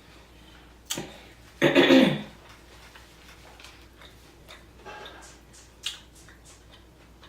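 Close-up mouth sounds of a person eating with their hands: scattered wet smacks and clicks, with one louder, longer mouth sound a little under two seconds in.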